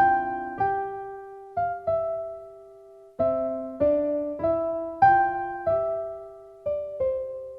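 Background music: slow solo piano playing single decaying notes, a gentle melody with a short pause partway through.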